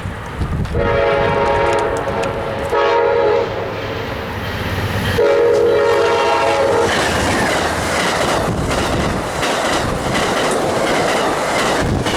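Diesel locomotive air horn sounding a multi-note chord in three blasts, long, short, then long, followed from about seven seconds in by a train passing close by with steady rumble and clickety-clack of wheels over rail joints.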